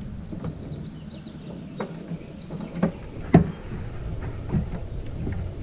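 Small clicks and knocks with rubbing as a spark plug lead's boot is twisted by hand onto a spark plug's threaded terminal, over a low steady hum; the loudest knock comes a little past halfway.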